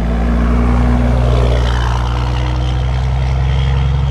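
1989 Dodge D250's 5.9-litre 12-valve Cummins turbo-diesel inline-six, fitted with a custom fuel pin and a 5-inch straight pipe into an 8-inch stack, driving past. The engine is loudest about one to two seconds in as the truck goes by, then carries on steadily as it pulls away.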